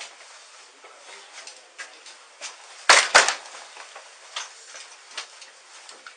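Rustling and small clicks picked up by a police body-worn camera, with two loud, sharp knocks close together about three seconds in.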